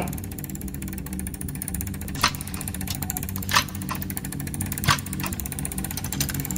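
A steady low hum with a sharp tick about every second and a half.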